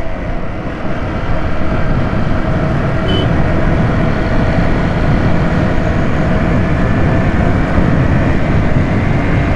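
Motorcycle running steadily on the move, with wind rushing over the microphone.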